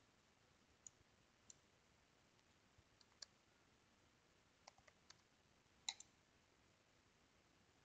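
Faint computer keyboard keys being typed: about ten short, irregular clicks, the loudest a pair near six seconds in.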